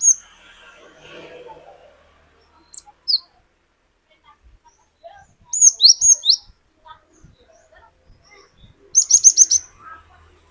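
Cinereous tit (glatik batu) singing in short, sharp whistled notes: a single note, then a quick group of four or five about halfway through, and a faster run of about seven near the end.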